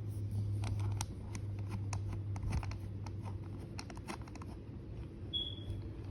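Scattered light clicks and taps of stool parts and a wrench being handled during assembly, over a low steady hum in the first half.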